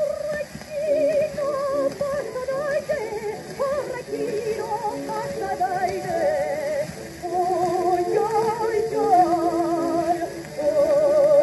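Acoustic-era 78 rpm Zonophone disc from about 1904–05 playing: a soprano singing an operetta song with wide vibrato over a thin instrumental accompaniment, under steady surface hiss.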